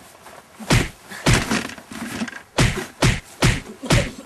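A rapid series of punch impacts, about six heavy thuds at an uneven pace, from a staged fight.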